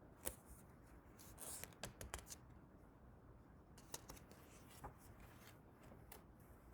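Near silence broken by a few faint, sharp clicks and a brief rustle of handling, most of them in the first half.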